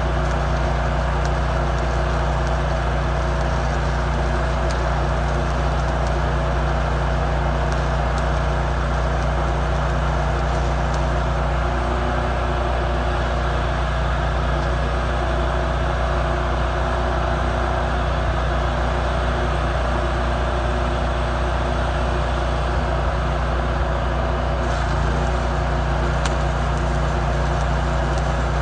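An engine running steadily at a constant speed, with a low hum and an even hiss over it.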